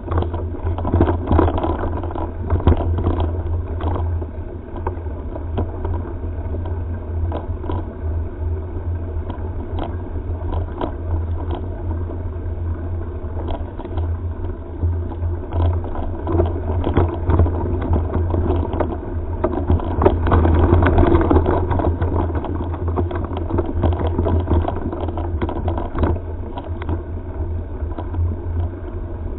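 Mountain-bike ride heard through a helmet-mounted camera: steady wind rumble on the microphone, with frequent clicks and rattling knocks as the bike and camera jolt over the rough dirt trail.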